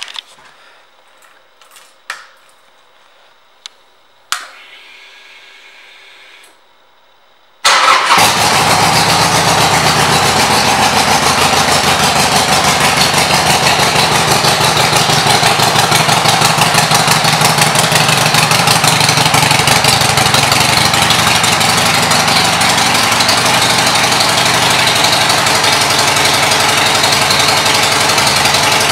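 A 2007 Harley-Davidson Sportster 1200 Low's air-cooled V-twin, fitted with Screaming Eagle pipes. After a few light clicks and a brief hum it catches at once, about a third of the way in, and then idles loudly and steadily with an even, rapid pulsing.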